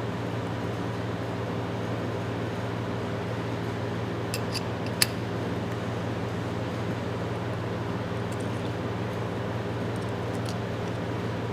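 A steady hum of room machinery, with a few light metal clicks from the Proto ratchet's small parts being handled during reassembly, one sharper click about five seconds in.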